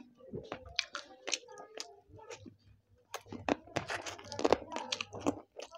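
Close-miked eating sounds: fingers pulling meat off a piece of chicken in a plate of biryani, then biting and chewing the chicken in wet, sharp clicks and crackles, loudest and densest from about three seconds in.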